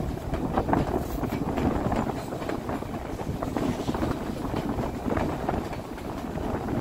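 Narrow-gauge White Pass & Yukon Route passenger cars rolling along the track: a steady rumble with irregular wheel clicks and rattles.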